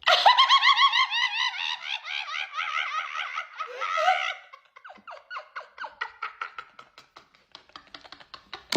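A person's high-pitched squealing giggle, a fast string of short rising-and-falling squeaks, loud for about four seconds, then trailing off into quieter rapid snickering.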